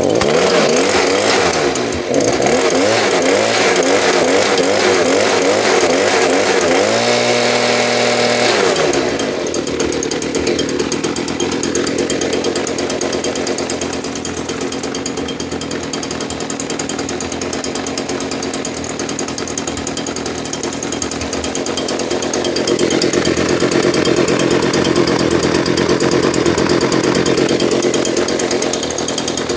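Stihl BG 86 leaf blower's two-stroke engine running on a cold start with a new carburetor. Its speed swings up and down repeatedly in the first several seconds as the throttle is worked, then it settles to steady running. The owner says it sounds good.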